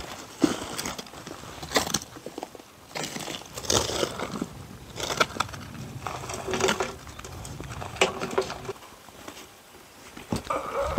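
Loose earth being scraped and scooped by hand, with irregular crunching scrapes of soil and grit.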